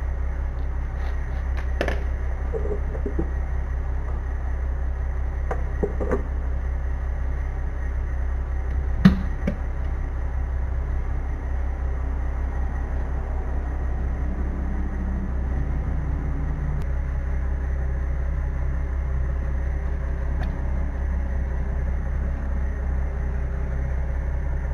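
Hand work on a trailer's oil bath hub cap: a few light metal clinks and one sharp knock about nine seconds in as the cap bolts are undone and the cap comes off, over a steady low hum.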